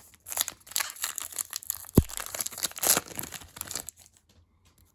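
Crinkling and tearing of foil trading-card pack wrappers being handled, with one sharp thump about two seconds in. The rustling stops about four seconds in.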